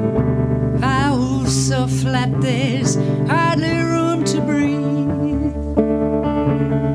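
A woman singing with a wavering vibrato over a strummed electric guitar. The voice comes in about a second in and drops out near five seconds, leaving the guitar ringing on alone.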